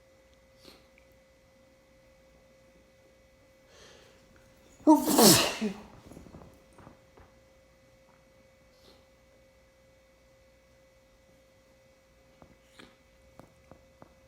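One loud human sneeze about five seconds in, part of a sneezing fit. A few faint clicks follow near the end, over a faint steady tone.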